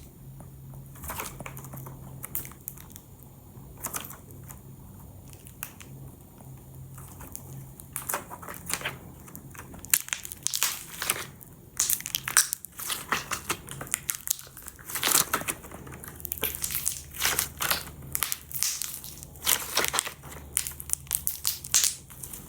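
Fireworks going off in a run of sharp pops and crackles, scattered at first and coming thick and fast through the second half.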